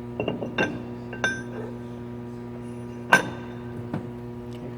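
Metal clinks and knocks as a grinder-polisher's platen disc is set into place: a few light clicks in the first second, then one loud, ringing clink about three seconds in. A steady electrical hum runs underneath.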